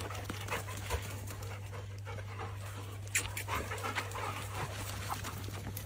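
Dog panting, over a low steady hum.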